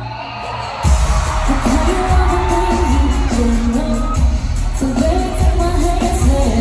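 Live pop music in an arena, heard from the stands: a woman singing, then about a second in a heavy bass-and-drum beat drops in under her voice.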